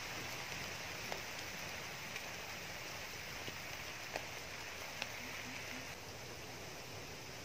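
Steady outdoor hiss with a few scattered sharp ticks, and about five seconds in three faint, deep hoots of a coucal call.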